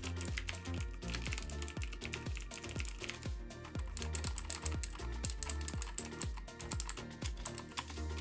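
Fast typing on clicky keyboard switches, Cherry MX Blue and Cooler Master Mecha-Membrane keys, a rapid clatter of sharp clicks over background music.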